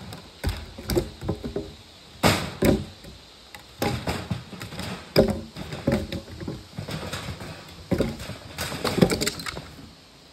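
A series of irregular knocks and thuds of wood, about a dozen in ten seconds, with some clattering between them; the loudest strikes come near the end.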